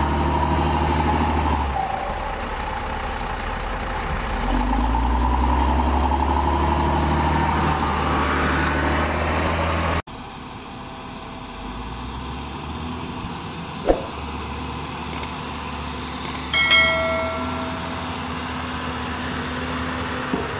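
Motor grader's diesel engine running, its speed rising and falling as it works. After a cut, a road roller's diesel engine runs steadily and more quietly, with a sharp click and a brief high-pitched sound partway through.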